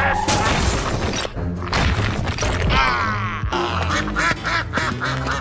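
Domestic ducks quacking over background music.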